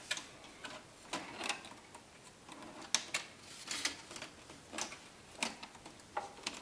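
Plastic snap clips of a Toshiba Satellite C655D laptop's screen bezel clicking loose as the bezel is pried off with a pick: a dozen or so sharp, irregular clicks and snaps.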